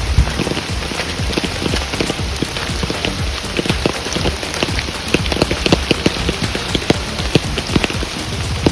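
Rain, with many separate drops striking close to the microphone over a steady low rumble, and one loud knock right at the start.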